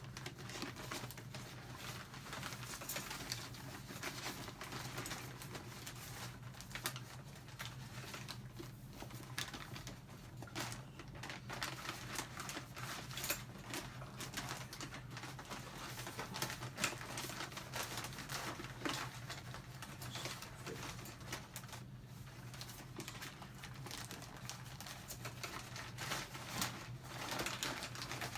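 Room sound: a faint steady low hum with scattered small clicks and rustles.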